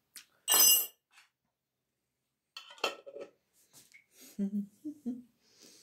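Tableware being handled on a table: a sharp, ringing clink about half a second in, then a few smaller knocks and clatters. A short low murmur of a voice comes near the end.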